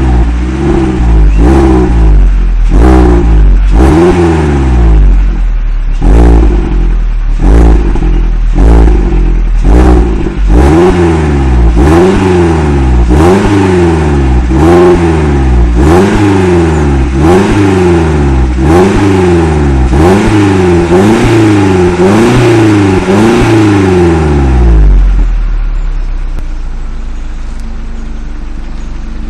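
Peugeot 206 GTi's 2.0 16-valve four-cylinder engine on its stock exhaust, revved in quick blips about once a second, each rising and falling, then dropping back to idle near the end. It breathes through a K&N replacement filter in the original airbox, which gives a slightly deeper, raspier note; the recording is loud enough to distort a little.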